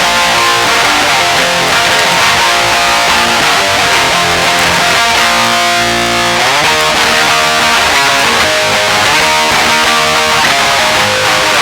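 Electric guitar through a distortion pedal, strumming chords continuously, with a chord held for about a second midway. An EQ pedal placed before the distortion boosts the mids and treble, leaving the bass untouched.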